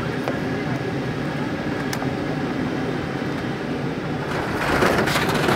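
Cabin noise inside a Boeing 747-8 at landing: a steady rumble of engines and airflow. About four and a half seconds in, a much louder rushing noise surges up as the airliner touches down on the runway and starts to brake.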